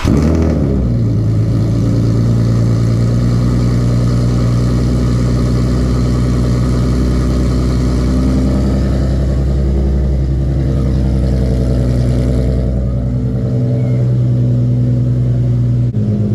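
Nissan 370Z Nismo's 3.7-litre VQ37VHR V6, first start on new ISR long-tube headers and a Greddy single-exit exhaust: a brief flare in revs as it catches, then a steady idle.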